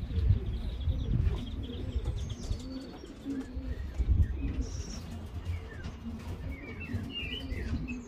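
Pigeons cooing softly, with small birds chirping faintly near the end, over a low rumbling background.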